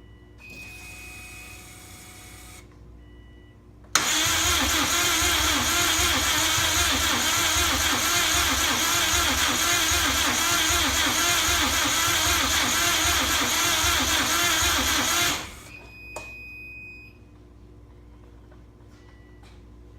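Subaru EJ205 flat-four turbo engine being cranked over by the starter for about eleven seconds with a steady, regular pulse, never catching, then cut off suddenly: a no-start on the freshly swapped engine.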